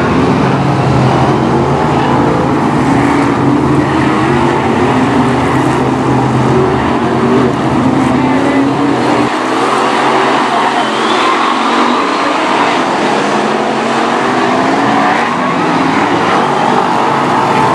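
BriSCA F1 stock cars' V8 engines racing on the circuit: a loud, continuous din of several engines whose pitch rises and falls as the cars pass and lap. The deep rumble thins out about halfway through.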